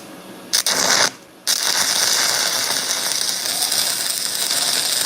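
Stick welding arc: a short burst about half a second in, then a steady sputtering crackle lasting about four seconds.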